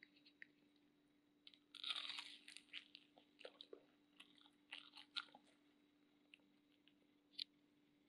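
A crisp bite into a deep-fried tahu walik (tofu stuffed with chicken and tapioca) about two seconds in, then scattered crunching as it is chewed, with one last crunch near the end.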